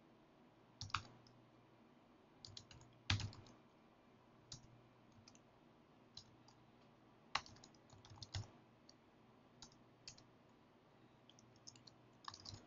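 Faint, scattered keystrokes on a computer keyboard: single clicks spaced a second or more apart, with a quicker run of keys near the end.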